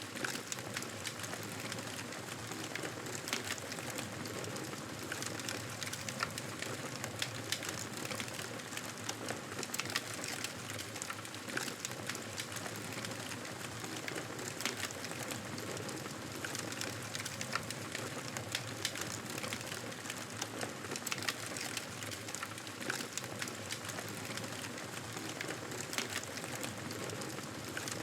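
Campfire burning steadily, with a constant hiss of flames and frequent sharp crackles and pops from the burning wood.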